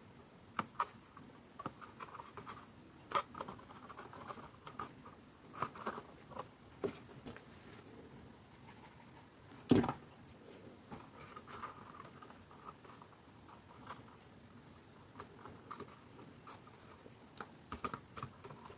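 Cardstock being handled and pressed by hand: soft paper rustles, light taps and scratches, with one louder tap about halfway through.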